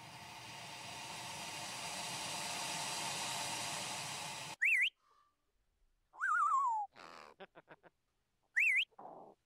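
A rushing hiss swells for about four and a half seconds and cuts off suddenly. Then come macaw calls: a sharp up-and-down whistle, a wavering call that falls in pitch, a quick run of clicks, the same whistle again, and a short lower call.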